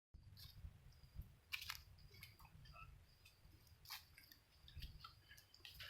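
Near silence: faint background hum with a few soft, scattered clicks.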